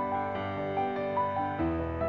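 Background music: a slow melody of held notes over a sustained low part, which shifts about a second and a half in.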